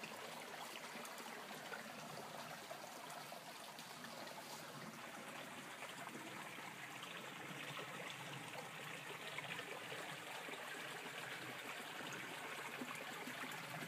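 Small mountain stream flowing: a steady, faint trickling of water, growing a little louder about halfway through.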